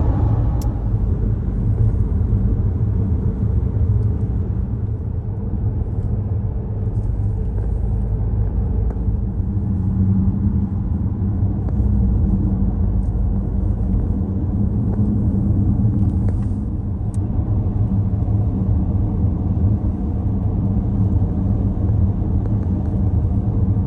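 Steady low rumble of a car driving, with no sudden events.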